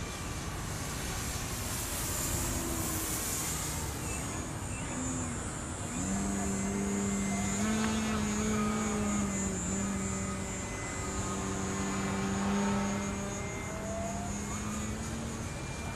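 Radio-controlled model airplane flying overhead, its motor and propeller making a steady drone. The drone grows louder and clearer from about six seconds in, with small shifts in pitch as the plane manoeuvres.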